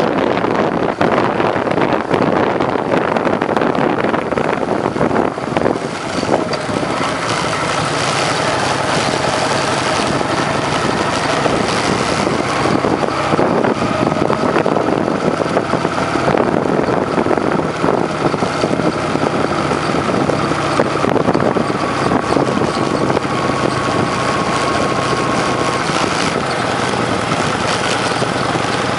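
Motorcycle engine running steadily at cruising speed, heard from a moving bike with wind and road noise rushing over the microphone.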